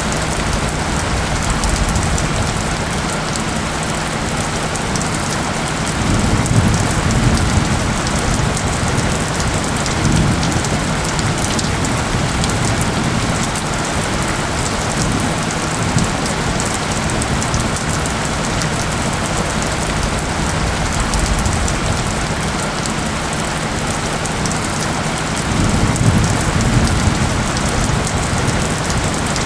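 Steady rain falling, a dense even patter of drops. Low rumbles swell up about six seconds in and again near the end. A faint steady low tone runs underneath, the isochronic tone layer of the mix.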